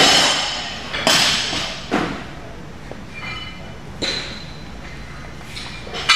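Four sharp thuds, one at the start, then at about one and two seconds and again near four seconds, each echoing through a large hall, with a faint metallic ring in between.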